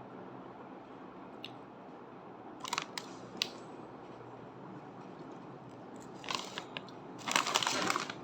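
Biting into and chewing jalapeño Cheetos. A few sharp crunches come around a third of the way in, and a dense run of loud crunching comes near the end.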